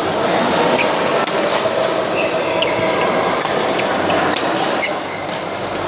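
Background chatter and echo of a large hall, with scattered sharp clicks and knocks about six times.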